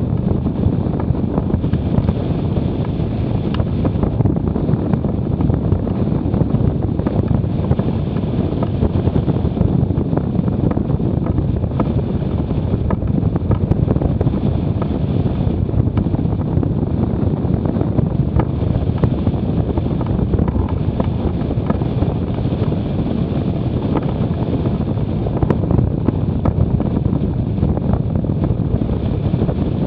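Wind buffeting the microphone: a steady, loud low rumble that does not let up.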